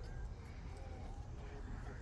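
Faint, distant voices over a low steady rumble.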